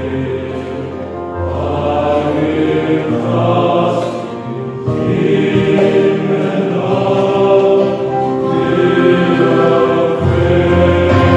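Male choir singing a hymn in parts over electronic keyboard accompaniment, holding sustained chords that swell and grow louder toward the end.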